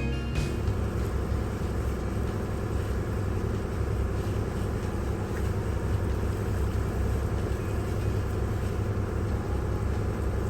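Nordic Tug 37's diesel engine running steadily under way, a constant low drone heard on board.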